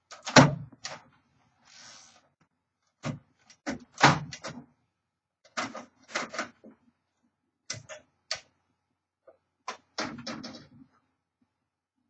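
1954 Royal Quiet DeLuxe manual typewriter being worked by hand: irregular mechanical clunks and clacks, in groups of one to three, spaced about a second apart, with a short sliding rasp about two seconds in.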